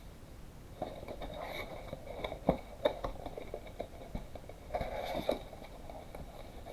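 Handling of a cardboard card box and its wrapped trading-card packs: two short spells of crinkly rustling, with a few sharp taps between them.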